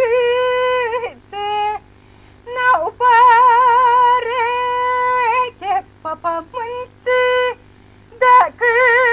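A woman singing a Romanian folk song unaccompanied, holding long notes with a wide vibrato and breaking off between phrases.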